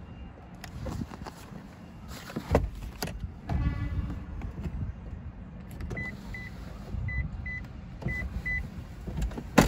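Power-folding third-row seat of a 2011 Lexus GX 460 folding down: the electric seat motor whines with clicks and clunks from the seatback. Then come three pairs of short, high beeps, and a sharp knock near the end.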